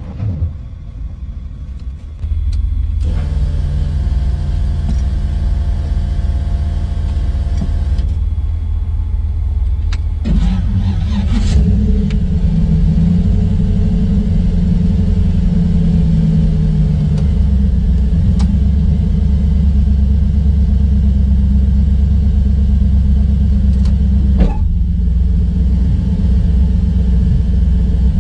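LS V8 in a Firebird idling steadily, heard from inside the car's cabin. About ten seconds in the sound shifts with a brief rising sweep, then settles into a deeper, louder idle rumble. There is one sharp knock near the end.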